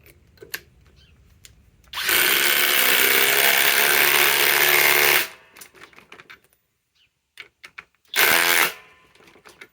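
Flex FX1371A cordless impact driver hammering a fastener into a pre-drilled hole for about three seconds, then a short half-second burst of the driver near the end.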